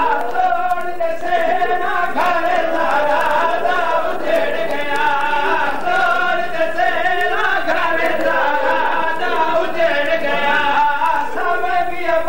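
Many men's voices chanting and wailing together in a mournful, sung lament: a majlis congregation grieving aloud during the recitation of the masaib of Imam Hussain.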